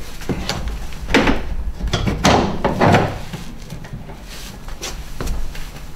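A series of short knocks and scrapes as plastic siding gauges are clipped onto the top edge of a fibre cement cladding board and pushed against it.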